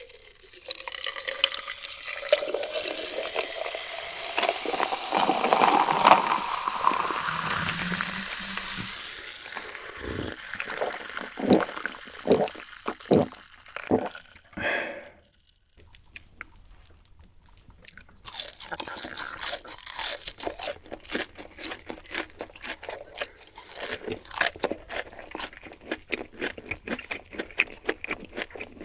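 Close-miked eating: a steady rustling hiss for the first several seconds, then separate bites and chewing, and from about halfway on a dense run of crunching from fried food.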